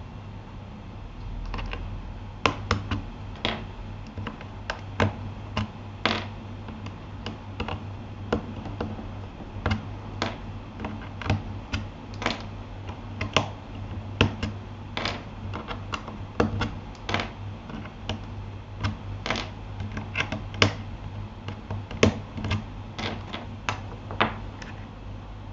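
Typing on a Keychron K8 mechanical keyboard fitted with Gateron Aliaz silent switches: irregular muted keystroke clicks, a few a second, over a steady low hum.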